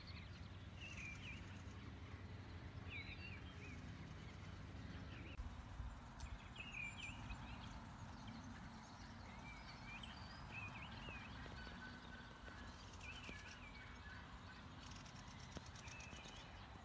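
Small birds chirping and twittering in short, repeated calls, faint, over a low steady rumble of outdoor background noise.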